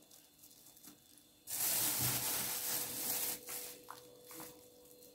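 Hands rubbing and pressing chopped red pepper strips into a tray of stuffed onions, giving a soft rustling for about two seconds, starting about a second and a half in, then a few fainter rustles.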